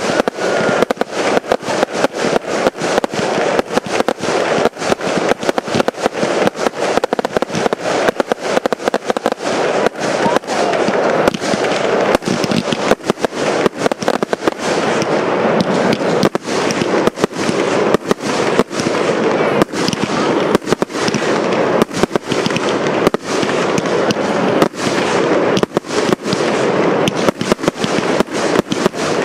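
Firework batteries firing in a dense, continuous barrage: sharp bangs of launches and shell bursts, several a second, over a steady crackling hiss.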